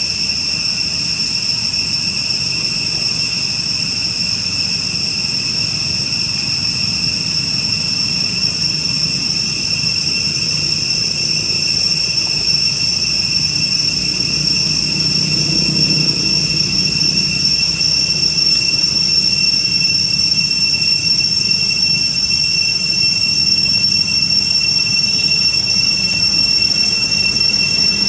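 Cicadas droning in a steady high-pitched chorus, unbroken throughout. A faint low rumble swells briefly about halfway through.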